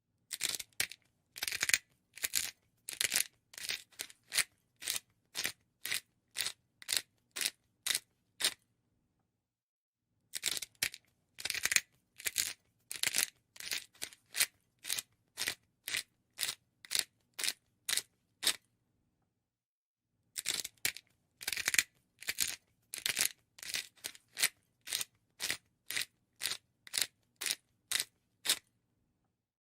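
Pepper mill being twisted, grinding peppercorns in short crunching strokes about two a second. The strokes come in three runs of about eight seconds, with brief pauses between.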